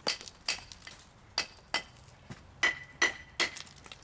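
Hammer tapping man-made stone step blocks to knock them tighter into position, about seven sharp, irregularly spaced taps, some with a brief metallic ring.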